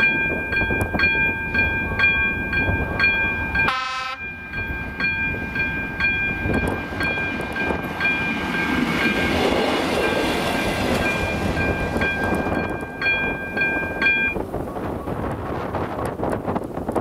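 Electronic warning bell of AŽD 97 level-crossing signals, ringing about twice a second with a bright tone, stops abruptly about fourteen seconds in as the crossing clears. A short train horn note sounds about four seconds in, over a rumbling background of wind and rail noise.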